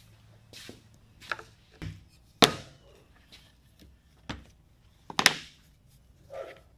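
Bottles and tools being set down and handled on a wooden workbench: a series of about six separate knocks, the loudest about two and a half seconds in and another just after five seconds.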